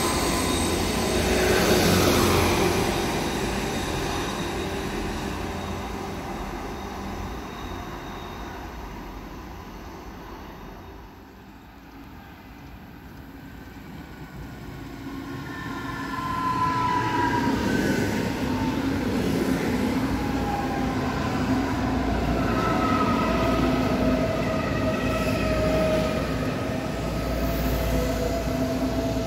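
An Integral diesel multiple unit runs past and fades away over about ten seconds. Then a Munich S-Bahn electric multiple unit comes in, its electric drive giving several falling whines as it brakes to a stop, and it stays loud and steady near the end.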